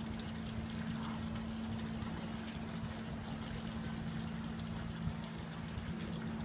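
River water trickling, over a steady low hum.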